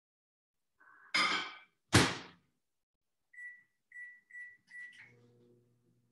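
Microwave oven door opened and shut with a thunk, four short keypad beeps, then the oven starts running with a steady low hum.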